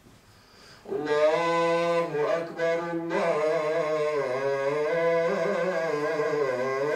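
A muezzin's unaccompanied voice chanting the adhan, the Islamic call to prayer, in long drawn-out melodic phrases with slow rises and falls in pitch; after a short pause a new phrase begins about a second in.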